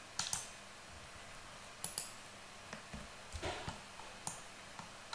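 Computer keyboard keys and mouse buttons clicking: about ten short, faint clicks spread unevenly, some in quick pairs.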